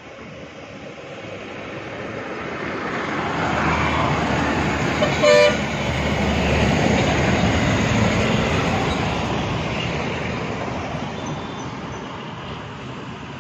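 A KSRTC bus's diesel engine and tyres growing louder as it approaches and passes close by, then fading away. About five seconds in, a horn gives one short blast, the loudest sound.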